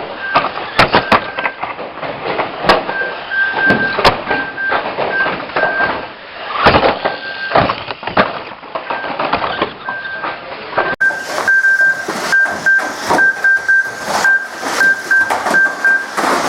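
Radio-controlled banger cars racing, with repeated knocks and clatter from collisions and a steady high tone that keeps cutting in and out. The sound changes abruptly about eleven seconds in.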